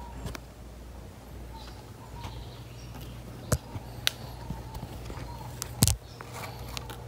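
Handling noise: a few sharp clicks and knocks, the loudest about six seconds in, over a steady low hum.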